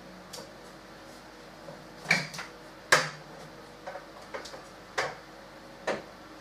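A folding chair being handled and folded up: a series of sharp knocks and clacks, the loudest about three seconds in.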